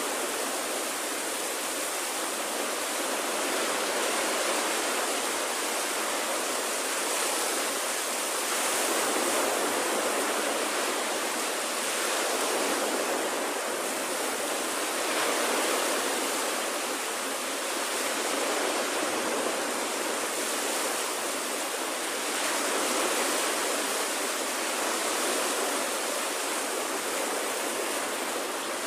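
Small waves breaking and washing up a sandy beach: a steady rush of surf that swells and eases every several seconds.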